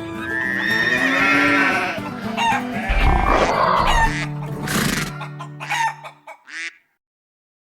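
Background music with farm animal sound effects, including a rooster crowing. The sound fades out about seven seconds in, into silence.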